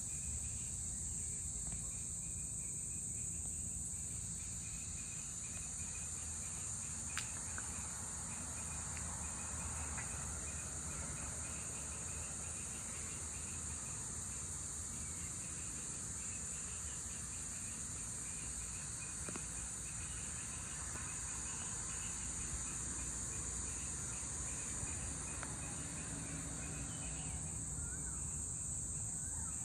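Evening insect chorus: a steady high-pitched drone with another insect chirping in a fast, even pulse at a lower pitch, over a low rumble. A few faint bird calls come in near the end.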